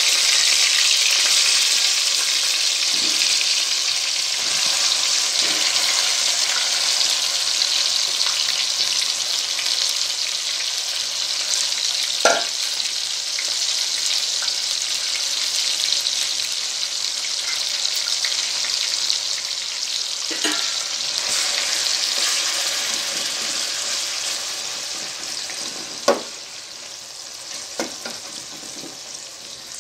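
Yogurt-marinated chicken sizzling in hot oil in a stainless steel pot while a steel spoon stirs it, with a few sharp clinks of the spoon against the pot. The sizzle is loud at first and dies down markedly near the end.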